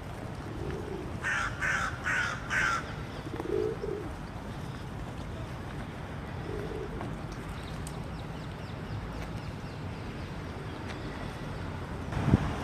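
A crow cawing four times in quick succession, with a pigeon cooing low a few times around it over a steady background rumble. A sudden louder noise comes near the end.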